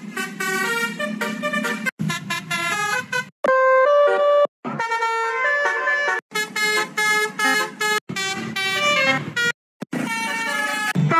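Simulated basuri, an Indonesian multi-tone musical bus horn, from a phone app playing one short preset tune after another. Each snippet is a melody of loud horn notes that breaks off after one to two seconds as the next preset starts.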